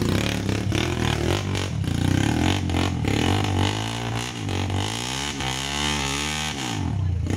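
Enduro dirt bike engine revving on a trail climb, its pitch rising and falling over the second half and then dropping away, with clatter over the running.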